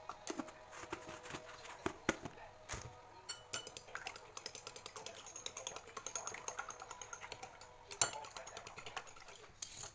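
A utensil beating egg in a glass bowl: scattered clicks at first, then a fast, steady run of clicks against the glass from about three and a half seconds in until near the end.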